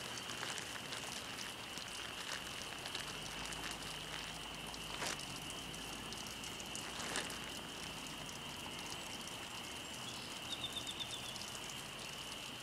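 Steady outdoor background with a constant high hiss. A couple of faint clicks come about 5 and 7 seconds in, and a short run of quick, high chirps about 10 seconds in.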